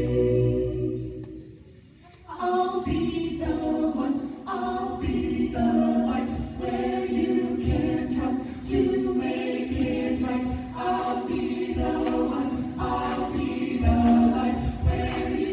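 High-school a cappella group singing. A held chord with a low bass note fades away over about two seconds, then the voices come back in with moving chords over a steady beat of low thumps.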